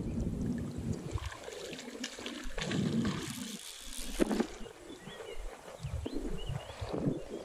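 Water splashing and sloshing for about a second and a half, with a sharp splash near the end, as a hooked fish thrashes at the surface close to the bank. Wind rumbles on the microphone at the start.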